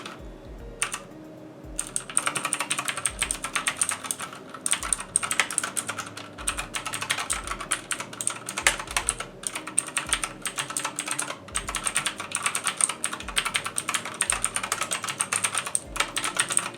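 Fast typing on a budget mechanical keyboard with Otemu blue clicky switches, a dense run of sharp clicks starting about two seconds in. The keys have a metallic twang, which the owner takes as a sign that the switches aren't lubed well and are sounding against the aluminum backplate.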